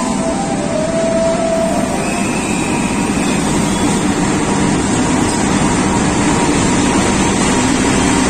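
Diesel locomotive pulling a passenger train into the platform: a steady, loud engine drone over the noise of wheels on rails, with the carriages rolling past near the end.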